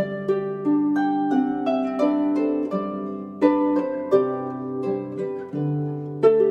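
Harp playing a slow melody, plucked notes ringing on over sustained low notes. Fuller chords are struck about three and a half seconds in and again near the end.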